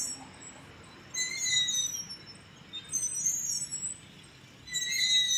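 Playground swings squeaking as two children swing high. The high, slightly bending squeal recurs about every one and a half to two seconds, in step with the swing strokes.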